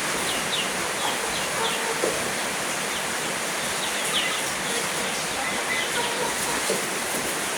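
A steady hiss, with many short, high, falling chirps from birds scattered through it.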